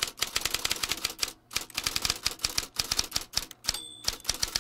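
Rapid clacking of typewriter keys, about ten strokes a second, with a short pause about a second and a half in and a brief high ding near the end.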